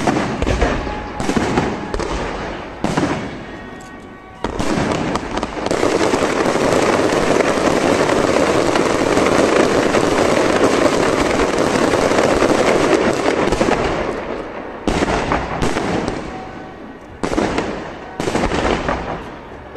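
Aerial fireworks going off: a few separate sharp bangs, then from about four seconds in a dense continuous barrage of bursts and crackling that lasts about ten seconds. After it fades come single bangs again near the end.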